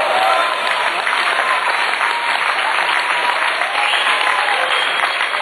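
Spectator crowd clapping steadily, with a few voices calling out over the applause.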